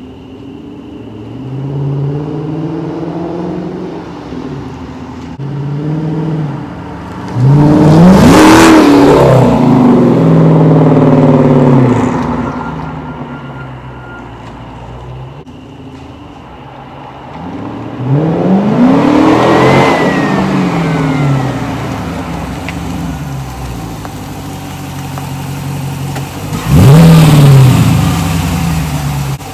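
Dodge Charger Pursuit's 5.7 Hemi V8 through Classic Muffler Power Stick mufflers with no resonators, accelerating hard several times with the engine pitch climbing and dropping between. The loudest runs come about a quarter of the way in and again near the end as the car comes close.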